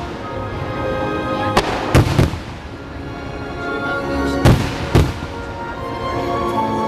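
Fireworks shells bursting: five sharp bangs, two close together about two seconds in and two more about a second apart near five seconds. Show music plays steadily underneath.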